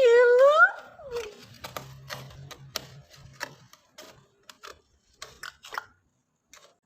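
A cat meows once at the start, a single call rising in pitch. It is followed by a few seconds of scattered light clicks and taps.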